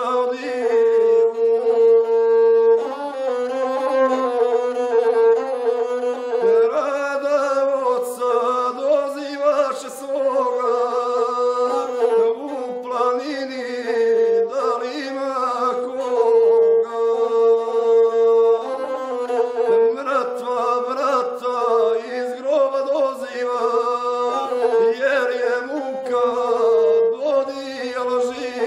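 Gusle, a single-string bowed folk fiddle, sawing out a wavering, ornamented melody while a man sings an epic song with it. Long steady held notes come at the start, about midway and at the end.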